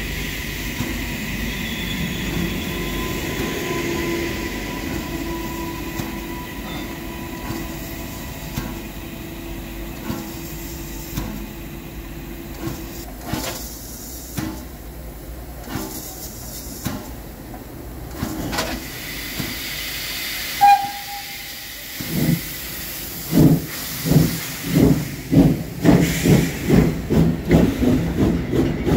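Pt47 steam locomotive standing with steam hissing steadily. About three-quarters of the way through there is a short whistle blast, and then the locomotive starts moving with exhaust chuffs that come quicker and quicker, a few a second by the end.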